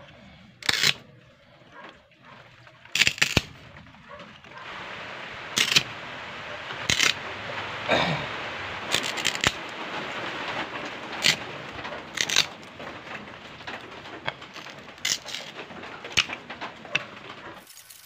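Short lengths of bamboo being split with a machete on a wooden block: about ten sharp cracks and knocks at uneven intervals. A steady hiss sits under most of them.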